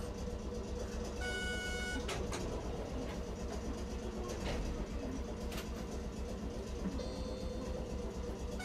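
Tosaden streetcar running, a steady low rumble inside the car with a few sharp clicks. A short electronic beep sounds about a second in.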